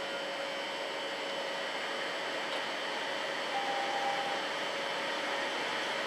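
Container freight train's wagons rolling past: a steady rush of wheels on rail, with faint steady whining tones over it and a brief higher tone about midway.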